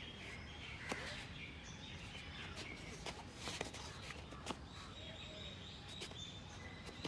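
Faint outdoor background noise with birds chirping, and a few sharp scuffs and taps from bare feet and bodies grappling on foam mats.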